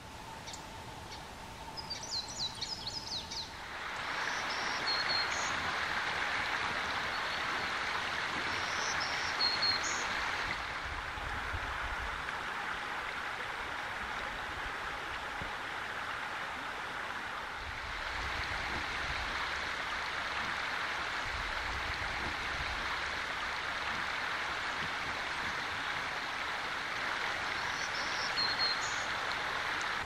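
Black-throated green warbler singing short, high, buzzy song phrases a few times, about five and nine seconds in and again near the end, over a steady rush of running water. A quick run of high warbler notes comes just before the water noise sets in.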